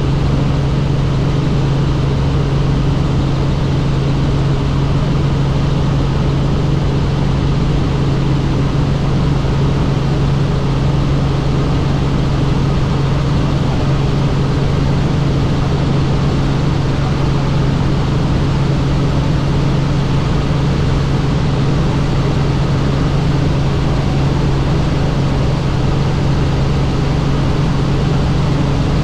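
Helicopter in flight: a steady, unchanging drone of engine and rotors with a strong low hum.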